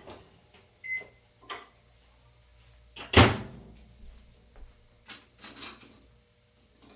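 A kitchen door shut with one loud bang about three seconds in, among a few lighter clicks and knocks of handling.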